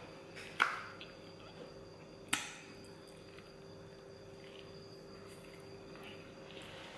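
Eating sounds at a table: two short sharp clicks about a second and a half apart, then faint chewing as a cooked chicken drumstick is bitten into, over a steady low electrical hum.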